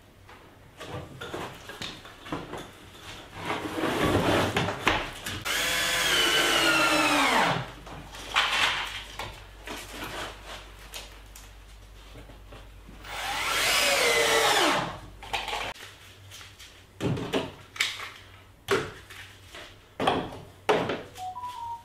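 An electric drill driving screws through a plywood cockpit coaming ring into a kayak deck, in two runs of about two seconds each, with the motor's pitch falling through each run. Then come a series of sharp clicks and knocks as clamps are set on the deck.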